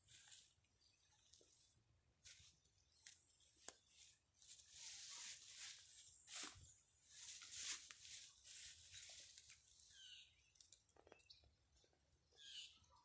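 Faint rustling and crackling of brush and dry vegetation in irregular bursts, with a few sharp clicks. The bursts are strongest in the middle.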